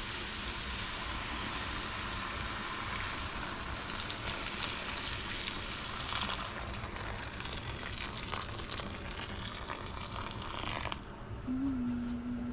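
Water poured into a hot stainless steel pan of sautéed tomatoes, onions and spices, hissing and sizzling as it hits the hot pan. The hiss stops suddenly about eleven seconds in.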